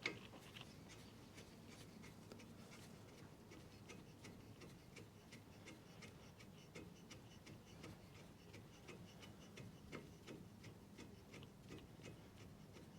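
Faint, irregular small clicks and ticks as a brake caliper slider pin is worked into its fitting, with a sharper click right at the start.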